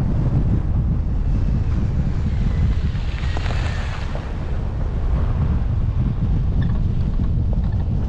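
Wind buffeting the microphone of a camera on a moving car, a steady heavy low rumble with small knocks from the road running through it. A brief higher hiss rises about three seconds in and fades by four.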